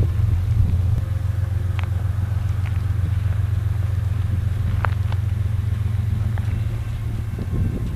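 Diesel freight locomotives running with a steady low rumble, with a few light clicks over it.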